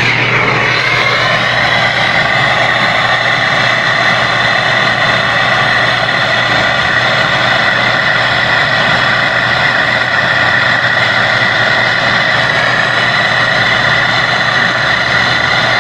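Gas brazing torch flame hissing steadily as a copper refrigerant pipe joint is heated, with a steady low hum underneath.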